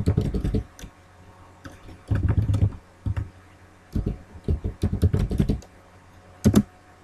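Computer keyboard typing in several short bursts of keystrokes with pauses between, as a word is typed, erased with backspace and retyped.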